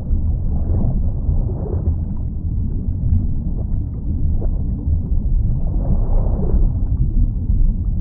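Muffled underwater sound: a steady, deep rumble and gurgle of moving water, dull and without any high sounds.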